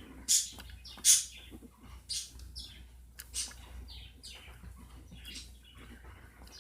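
Birds chirping: short high chirps every second or so, over a faint low hum.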